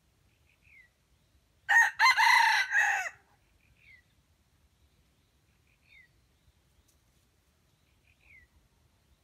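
Red junglefowl rooster crowing once, a loud crow of about a second and a half in a few linked parts. A faint, short, high falling note repeats every two seconds or so in the background.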